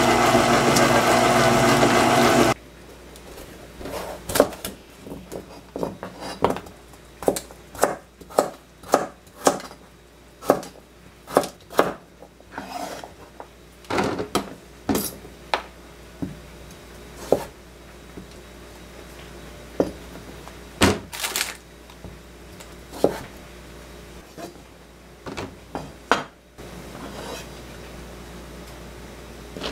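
Kitchenware clinking and knocking: irregular sharp clicks of utensils against dishes and pans, a few a second at times, with pauses. It is preceded by a loud steady motor-like hum that cuts off abruptly about two seconds in.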